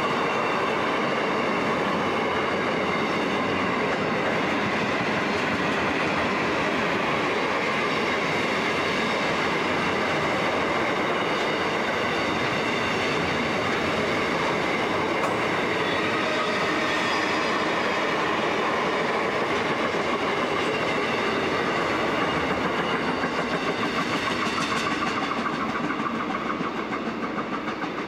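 Container wagons of an intermodal freight train rolling past close by, a steady wheel-on-rail rumble and clatter with a high ringing. Near the end it turns into a rhythmic clickety-clack and fades as the last wagons go by.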